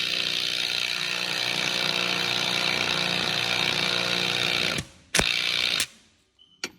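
Electric ratchet running steadily as it cranks down a GM belt tensioner tool, compressing the tensioner spring to slacken the serpentine belt. It stops a little before 5 seconds in, then gives one more short burst.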